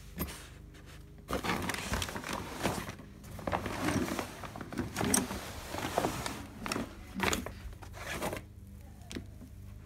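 Handling noise from a backpack and papers being picked up and moved about: irregular rustling and scraping with a few sharp knocks, starting about a second in and dying down near the end.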